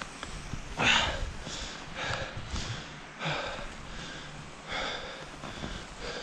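A skier's heavy breathing, panting in and out roughly once a second, the loudest breath about a second in. He is out of breath from working through deep powder snow.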